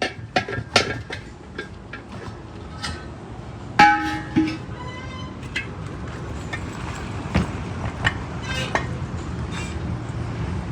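Irregular sharp metal clanks and clinks, several of them ringing on briefly, the loudest nearly four seconds in, from tools and steel parts being handled and struck during roadside truck wheel and brake drum repair, over a steady low rumble.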